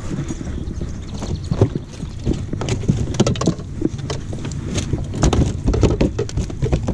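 Irregular knocks and thumps on a bass boat's carpeted deck as a freshly caught bass flops in the landing net and is lifted out by hand, over a steady low rumble.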